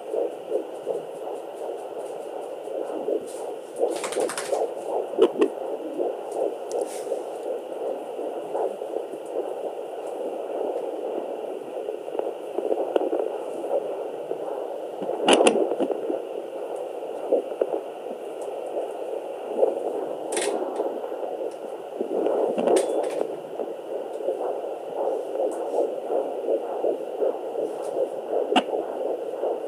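Handheld fetal Doppler's speaker playing the whooshing, fast pulsing signal of a 12-week fetus's heartbeat and movements. The owner reads the heartbeat in the 160s per minute. A few sharp scratchy bursts break through, about 4 s in, around 15 s and around 20 s.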